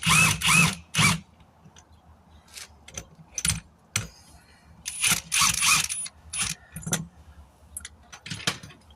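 Metal tire-changing tools clanking and scraping as they are handled and repositioned: a burst of clanks at the start, another about five seconds in, and scattered clicks between.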